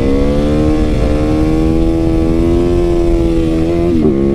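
Supermoto motorcycle engine held at steady high revs through a wheelie, its pitch creeping slightly upward, then falling off about four seconds in.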